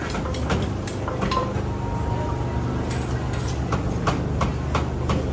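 Kitchen clatter at a busy street food stall: irregular knocks and clinks of cooking utensils, about two or three a second, over a steady low hum.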